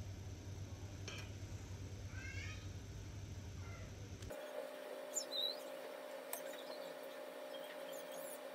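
Quiet kitchen handling: a few light clicks and scrapes of a serving spoon against a glass baking dish while tomato sauce is spread over the pasta, over a low hum. A brief faint high squeak comes about two seconds in.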